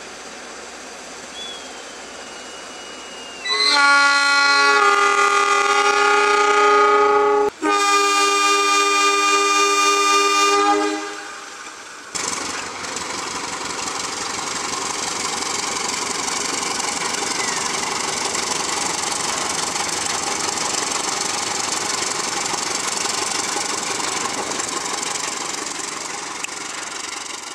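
Diesel locomotive horn blowing two long multi-tone blasts with a brief break between them. Then comes the loud, steady noise of the train passing close by.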